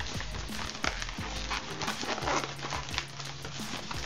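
Latex modelling balloons rubbing and squeaking against each other and against her hands as they are twisted and handled: a dense, crackly run of small squeaks and rubbing with no pop.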